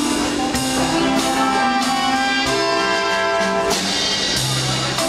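Live big band playing ballroom dance music, its brass section holding long chords.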